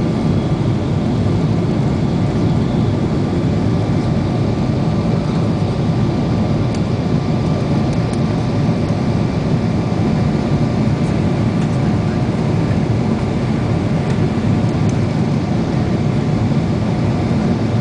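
Steady drone of a Boeing 777's jet engines and airflow after takeoff, with a few faint steady tones above the low noise.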